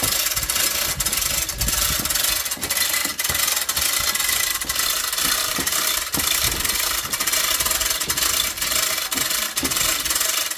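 Manual chain hoist (chain block) being hauled hand over hand: the hand chain runs through the hoist with rapid, irregular clicking and metallic rattling while it moves the suspended diesel engine.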